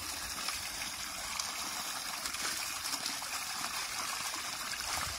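Water from a hose pouring steadily into a steel basin of freshly dug sweet potatoes, splashing over them as they are washed by hand.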